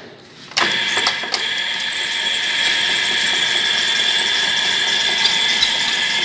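Lathe switched on: the motor and spindle start suddenly about half a second in, then run steadily with a high whine as the three-jaw chuck spins a clamped workpiece.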